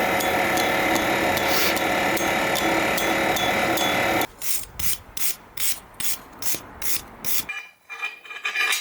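A loud, steady scraping noise with ringing tones for about four seconds, then a hand file scraping along the leaf-spring steel blade in even strokes, about three a second. The filing cuts off just before the end.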